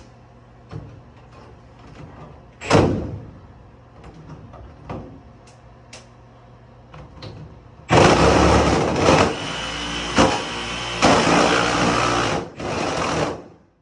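Knocks and clicks of handling, then about eight seconds in a jigsaw fitted with a wood blade cuts thin sheet-metal HVAC duct. The cut is a loud rasping run of about five seconds with a few brief dips, and it stops just before the end.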